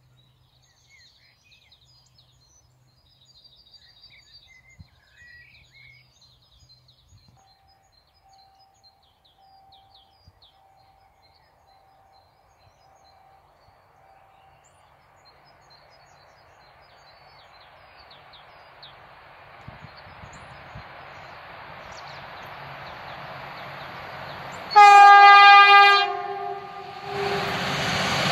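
Diesel locomotive SU42-006 hauling a passenger train, its rumble slowly growing louder as it approaches. Near the end it sounds one long two-tone horn blast of about two seconds: the Polish Rp1 'attention' signal. The locomotive and coaches then pass close by, loud.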